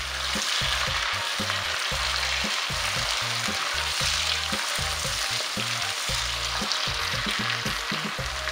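Chopped tomatoes and garlic sizzling steadily in hot oil in a nonstick wok. A silicone spatula stirs them, with soft irregular knocks against the pan.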